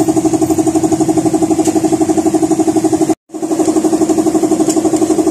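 An engine running steadily at idle, with a fast, even pulsing beat. It cuts out for an instant a little after three seconds in.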